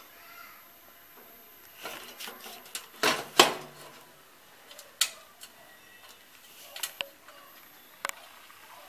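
A hard disk and a screwdriver clinking and scraping against the steel drive bay of a desktop PC case as the drive is slid into place: a handful of sharp metallic clicks and knocks, the loudest two about three seconds in.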